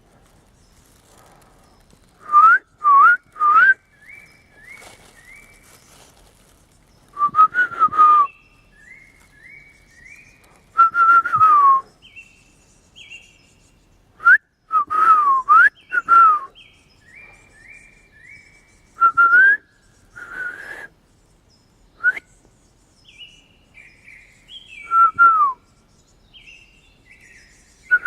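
A person whistling short gliding notes close to the microphone, taken up in turn by a bird answering with quieter series of three or four short, high, falling notes. The two trade calls back and forth repeatedly.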